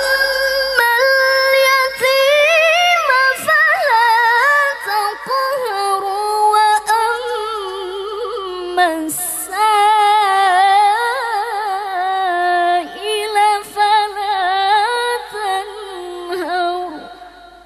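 A woman reciting the Qur'an in melodic tilawah style into a microphone: long held notes with wavering, ornamented turns. There is a brief break about nine seconds in, and the line trails off near the end.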